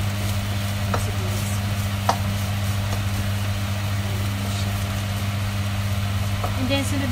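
Chopped chicken and onion sizzling in a nonstick frying pan while a wooden spatula stirs them, with a couple of taps of the spatula against the pan about one and two seconds in. A steady low hum runs underneath.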